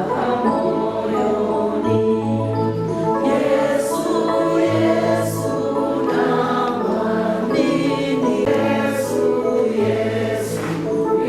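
Voices singing a slow hymn together, holding long notes over steady low bass notes.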